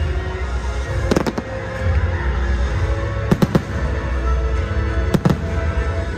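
Firework shells bursting in three quick clusters of sharp bangs, roughly two seconds apart, over the show's music soundtrack with a strong deep bass.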